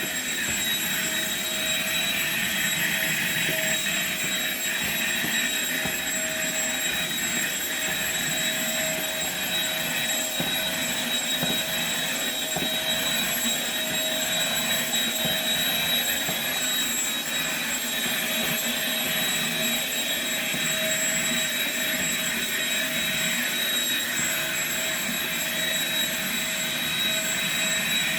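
Vacuum cleaner running steadily, its motor giving a constant whine over a steady rushing of air, with no change in pitch.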